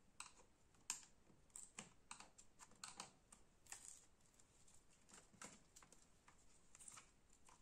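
Faint, irregular light clicks and taps of plastic, like keys clacking, as the laptop's keyboard and plastic top cover are handled.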